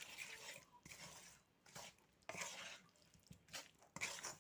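Hands mixing bone-in chicken pieces through a yogurt and spice marinade: faint, irregular wet squishing with a few small clicks.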